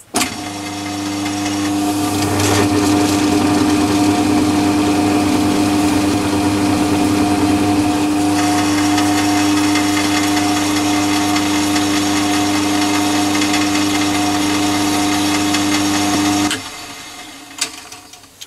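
Myford ML7 lathe running free, driven by its half-horsepower Crompton electric motor. It starts with a click, runs up to speed over about two seconds and runs with a steady hum. A couple of seconds before the end it is switched off and winds down.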